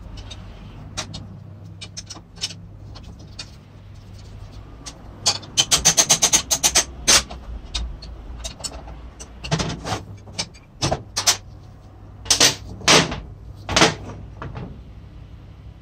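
Metal clinks and knocks of a wrench and the antique electric chisel's metal housing being handled during disassembly: a quick run of clicks about six seconds in, then a few louder separate clanks near the end, over a steady low hum.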